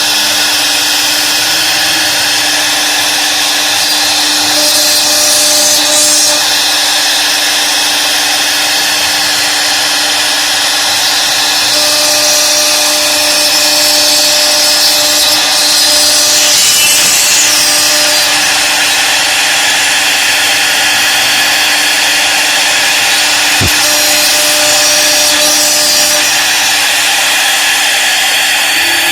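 CNC router spindle running with a steady whine while its bit cuts into wood, a continuous high-pitched cutting noise.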